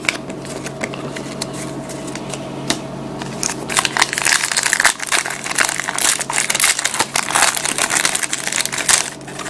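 Foil trading-card pack wrapper being torn open and crumpled: a run of crinkling and crackling that grows louder about three and a half seconds in.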